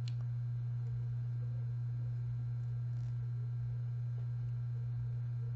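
A steady low-pitched hum at an unchanging level, with a faint light tick right at the start and another about three seconds in.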